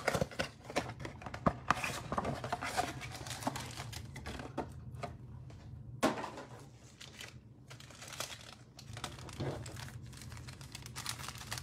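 Cellophane shrink wrap crinkling and tearing as it is stripped off a trading card box, then foil card packs rustling and clicking as they are handled, with a sharper rustle about six seconds in.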